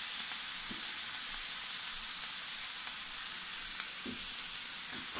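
Diced peppers, tomato and onion sizzling steadily in oil in a frying pan.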